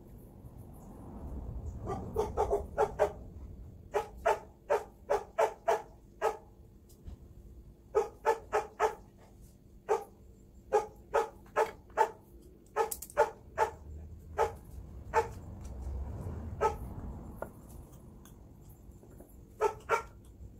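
A dog barking in quick runs of short barks, several a second, with pauses of a second or two between the runs.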